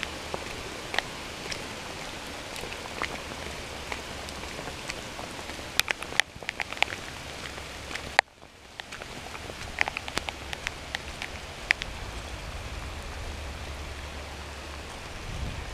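Rain falling steadily, with scattered louder drops tapping close by. The sound cuts out briefly about eight seconds in.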